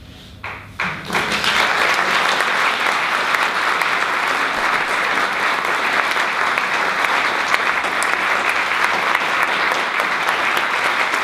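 Audience applause: a few scattered claps, then full, steady clapping from about a second in.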